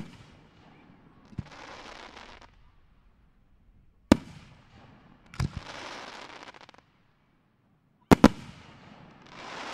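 Display fireworks: aerial shells bursting with sharp bangs every few seconds, some in quick pairs. After some of the bursts comes about a second of rushing noise from the burning stars.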